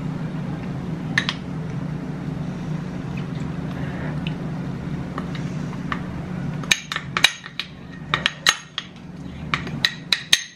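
A metal spoon scraping and clinking against a glass bowl as thick yogurt mixed with whey protein is scooped out into a white bowl. There are a few soft scrapes at first, then a quick run of sharp, ringing clinks in the last few seconds. A steady low hum sounds underneath until it cuts off abruptly about two-thirds of the way through.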